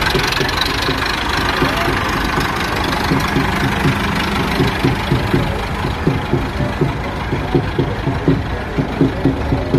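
ATS 290 4x4 tractor's diesel engine running at low speed, a steady chugging with regular low knocks about three a second that stand out more in the second half.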